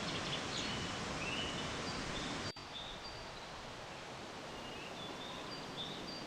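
Lower Catawba Falls, a 100-foot cascade over rocks, rushing steadily, with small birds chirping in short high notes over it. The water sound dips for an instant and comes back slightly quieter about two and a half seconds in.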